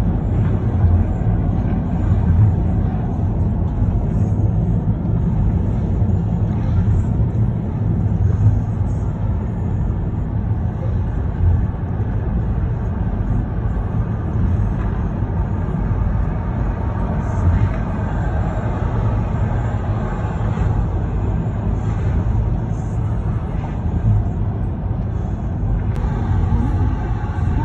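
Steady road noise inside a moving car's cabin: a low, even rumble of tyres and engine at cruising speed.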